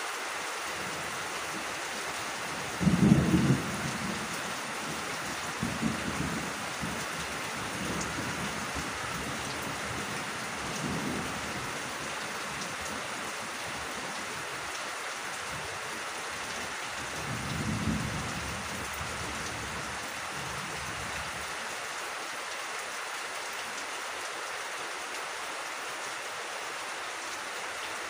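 Steady rain. A sharp thunderclap comes about three seconds in, followed by rolling rumbles, and another rumble of thunder swells and fades about eighteen seconds in.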